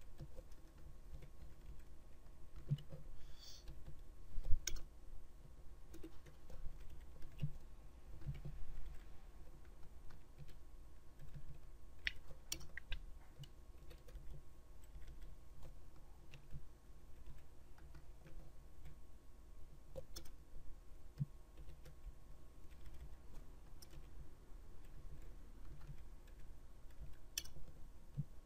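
Computer keyboard typing: scattered, irregular keystrokes with pauses between them, over a low steady background hum.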